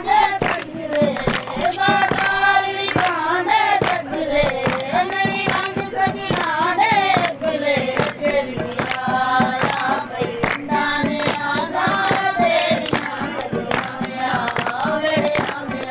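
A group of voices singing a traditional tappay folk song together, with hand claps marking the beat.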